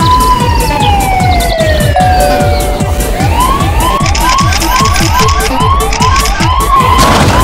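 Electronic background music with a fast, steady drum beat, overlaid by a siren. The siren gives one slow wail, rising then gliding down over the first two seconds, then switches to a quick yelp of about two to three rising sweeps a second. A noisy crash comes near the end.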